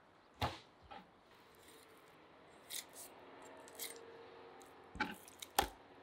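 Handling sounds at a wooden cutting board as a raw whole chicken is worked on. There is a sharp knock just after the start and a softer one after it, a few light crisp clicks in the middle, and two more sharp knocks near the end, the last the loudest.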